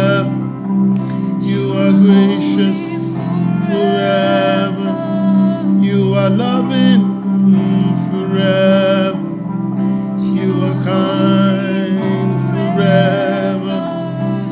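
Slow worship music: held chords with a voice singing over them.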